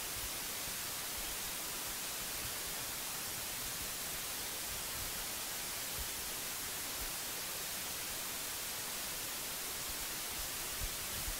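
Steady, even hiss with nothing else standing out: the noise floor of the recording.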